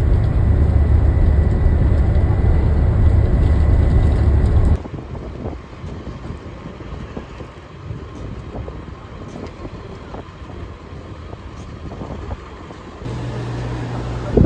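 Steady low rumble of a tour coach's engine and road noise heard inside the cabin, which cuts off about five seconds in. Then a much quieter outdoor stretch with light scattered taps, and a steady low hum in the last second or so.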